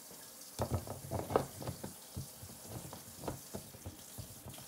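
A run of irregular small clicks and knocks, with some light wet sloshing, as a smoothie jug and glasses are handled on a kitchen counter. It starts about half a second in and is busiest over the next second.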